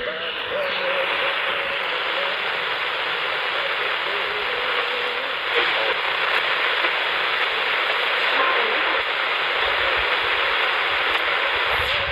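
Portable AM transistor radio hissing with static through its small speaker, a faint whistle wavering in the noise.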